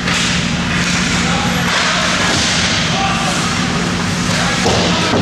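Ice hockey in play: skates scraping and carving on the ice, with faint shouts from players and spectators over a steady low hum in the rink.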